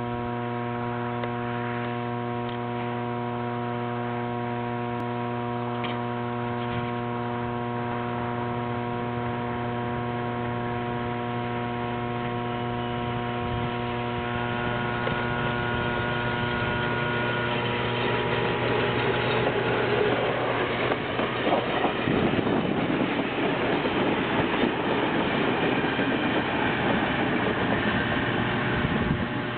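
Illinois Terminal electric interurban cars 277 and 518 approaching and passing close by: the rumble and clatter of their wheels on the rails builds from about halfway through and is loudest near the end. A steady electrical hum runs beneath it.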